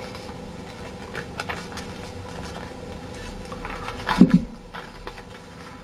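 A sheet of paper rustling and crackling as it is handled and folded, in scattered short crackles with a louder handful about four seconds in.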